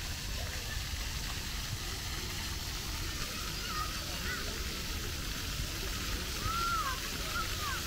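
Outdoor park ambience: a steady hiss over a low rumble, with short bird chirps coming in from about four seconds in.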